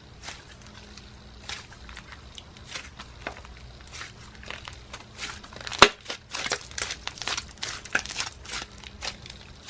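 Cloud cream slime with small foam beads being squished and stretched by hand, giving irregular crackles and small pops that grow busier toward the end, with one sharper pop about six seconds in.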